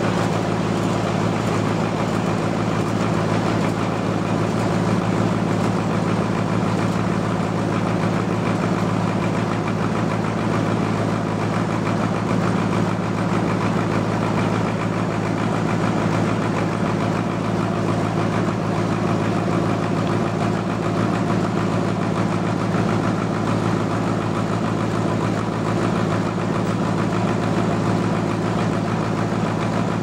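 Band sawmill running with a steady, unchanging engine-like drone.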